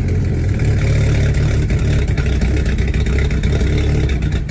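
VW GTI 2.0L TFSI turbo four-cylinder running steadily just after a cold start. It is the rough, misfiring cold start of a direct-injection engine whose intake valves are caked with carbon, running as if on only two or three cylinders.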